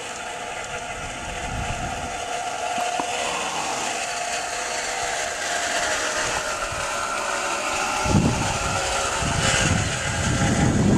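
Garden-railway model of the Burlington Zephyr streamliner running along its track on a single motor, its rear motor removed: a steady whine of the motor and gearing with wheels rolling on the rails, slowly growing louder. From about eight seconds in, wind buffets the microphone.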